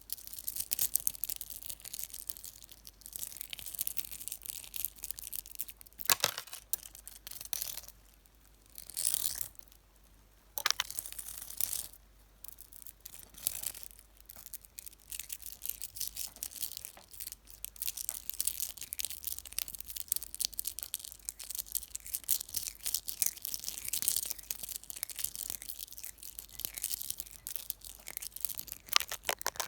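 Fingers rubbing, scratching and tapping directly on a camera and its microphone: a dense, crackly scratching with many sharp clicks and a couple of short pauses.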